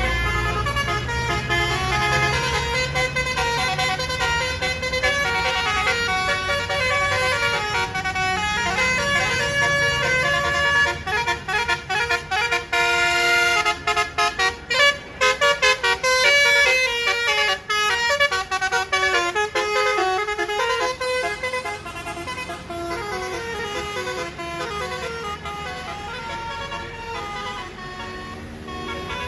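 Basuri 'telolet' multi-tone bus air horns playing a tune of stepped notes, with a run of short, quick notes in the middle. A bus engine rumbles underneath during the first part.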